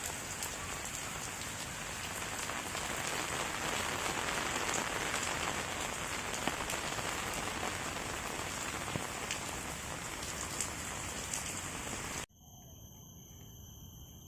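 Steady rain falling, with scattered taps of single drops. Near the end the rain cuts off suddenly, leaving a much quieter background with a few steady high tones.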